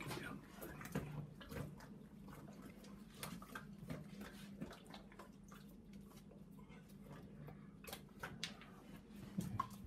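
A dog with much of her lower jaw removed eating dry kibble from a wooden feeder: scattered small clicks and crunches of kibble against wood and teeth, with pieces dropping out now and then.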